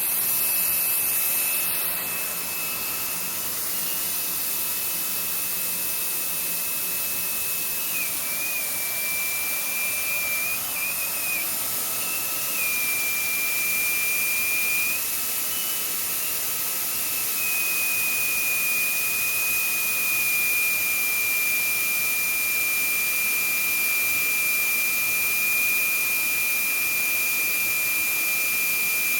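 Wyze cordless stick vacuum's brushless motor running continuously: a steady high whine over rushing air, dipping slightly in pitch a few times.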